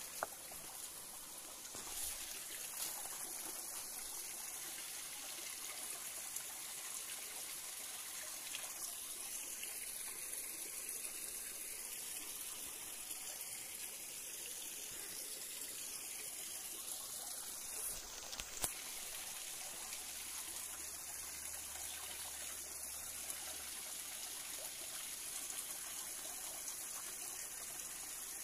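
Shallow forest stream trickling over rocks, a steady water sound with a small cascade spilling into a pool. Two brief sharp taps break in, one just after the start and one about two-thirds of the way through.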